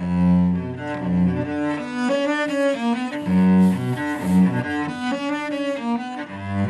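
Solo cello playing a flowing run of bowed notes, the low notes loudest.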